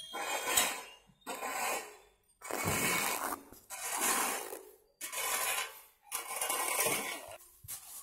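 Rough scraping and rustling in short bursts about once a second: a metal blade slitting a woven polypropylene cement bag, and the bag being handled and emptied of cement.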